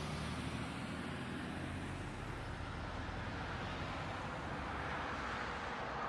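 Steady low hum of an idling car engine and traffic noise, heard from inside a car's cabin through a dashcam microphone.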